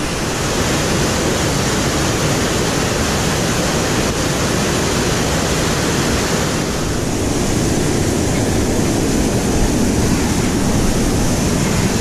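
Steady loud roar of whitewater pouring over a waterfall drop into a rocky gorge, a continuous rush that turns deeper and less hissy about halfway through.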